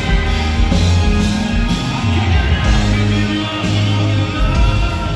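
Live rock band playing a song: a male lead singer over electric guitars, bass, keyboard and drums, at full volume throughout.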